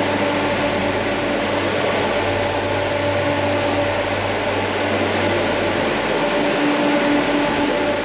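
Walk-in cold storage room's refrigeration unit and fans running: a steady, loud whirring hum with a few constant tones over it.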